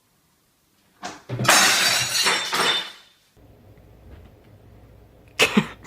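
A sudden crash of something breaking, with bright ringing like shattering glass, starting about a second in and dying away within about two seconds.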